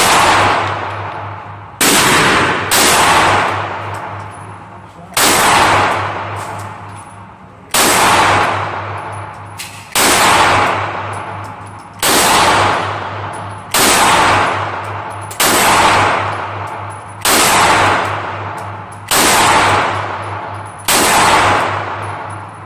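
Taurus G3 9mm pistol fired twelve times at a slow, uneven pace, one to two and a half seconds apart, each shot trailing off in a long echo. A faint steady low hum sits underneath.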